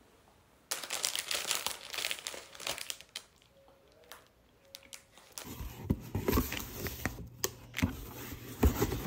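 Clear plastic bread bag crinkling as it is handled, starting about a second in. After a quiet pause, the sound changes to plastic packaging and cardboard rustling and knocking as a parcel is opened.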